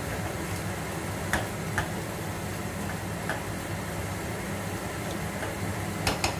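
A spatula stirring squid adobo in a nonstick frying pan: a few sharp clicks and taps of the utensil against the pan over a steady low hum.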